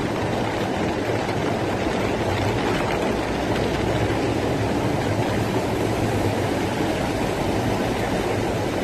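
Rainwater rushing down a street in a cloudburst: a steady, unbroken rush of water.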